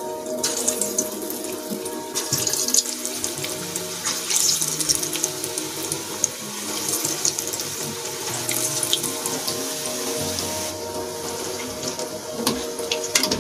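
Bottle gourd koftas deep-frying in hot oil in a kadhai: a steady sizzle with many small crackles. The hiss drops away near the end.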